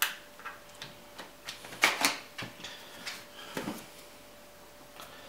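Hard plastic clicks and knocks as the battery latches on a Lenovo ThinkPad T440 are slid and its removable rear battery is pulled out of its bay and set down. A cluster of clicks is loudest about two seconds in, with one more small click near the end.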